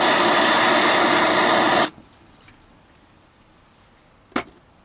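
Small handheld butane cooking torch burning with a loud, steady hiss as it heats a brass ferro rod handle; the flame cuts off abruptly about two seconds in. A single short click follows near the end.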